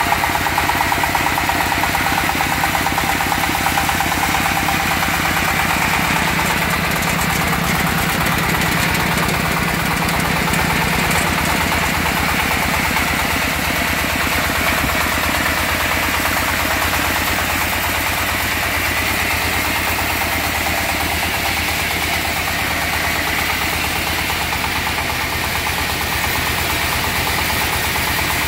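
Jiang Dong single-cylinder diesel engine running steadily at an even pace, driving a trailer-mounted band sawmill.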